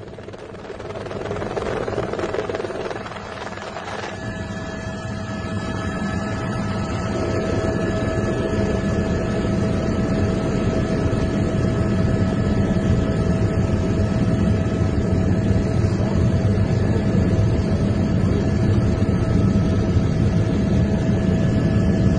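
A steady engine rumble that grows louder over the first several seconds. A steady whine comes in on top of it about four seconds in.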